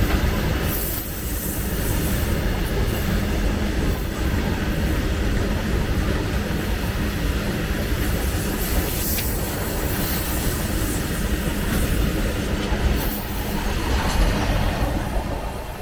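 Loaded freight train wagons rolling past at speed: a steady loud rumble and clatter of steel wheels on the rails, with a few brief high wheel screeches. The sound eases slightly near the end.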